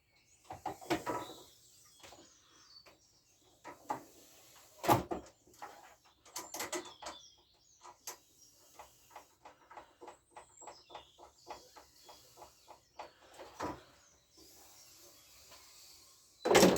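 Hand tools and scooter parts being handled during dismantling: scattered clicks, knocks and clatter, with a run of quick, even small ticks in the middle and a louder knock near the end.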